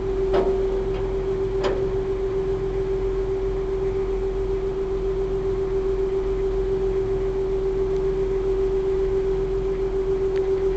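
Small river ferry's engine running with a steady, even hum. Two short knocks about a third of a second and nearly two seconds in.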